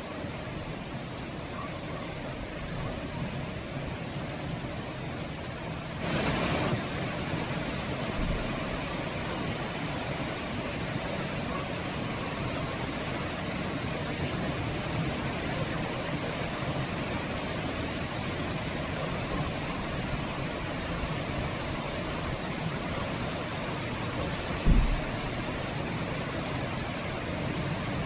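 Steady rain falling, briefly louder about six seconds in, with one short low thump near the end.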